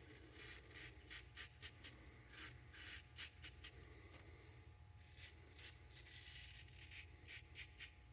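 Faint, short scraping strokes of a Dorco plastic double-edge safety razor cutting stubble through shaving lather, repeated in quick runs.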